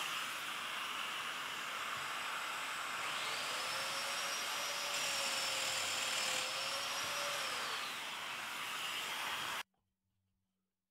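Dust extractor running steadily, with a Festool Domino joiner's motor spinning up about three seconds in, running while it cuts a mortise in a jarrah stile, and winding down near eight seconds. The sound cuts off abruptly near the end.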